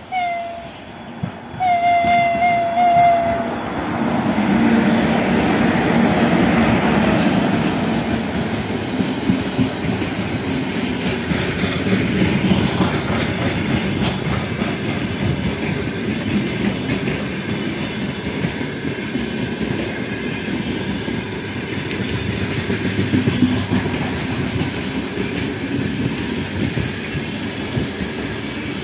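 2ES6 'Sinara' electric locomotive sounding its horn, a short blast and then a longer, slightly wavering one, as it comes in. Then the wagons of a slow freight train roll past with a steady rumble and the clatter of wheels over rail joints.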